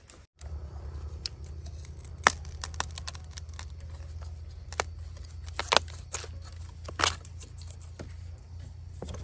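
Dry bamboo litter and twigs crackling, with several sharp snaps, as a hand pushes in among bamboo stems. A steady low rumble runs underneath.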